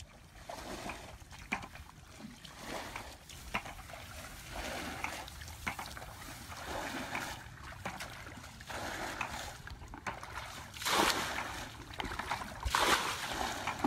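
Wading steps splashing through shallow muddy water about once a second, then louder, longer splashing from about eleven seconds in as hands grab about in a muddy pool.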